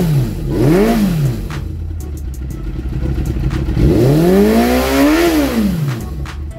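Motorcycle engine idling and revved by the throttle: a short blip about a second in, then a longer rev that rises and falls back to idle near the end. The engine is being revved to check the charging voltage after a stator replacement.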